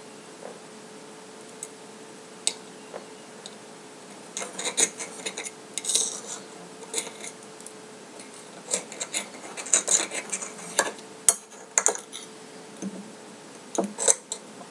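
Irregular clicks and short scrapes of a small utensil against a dish while seeds are picked out of a tiny chili pepper; a few scattered clicks at first, then quick clusters from about four seconds in.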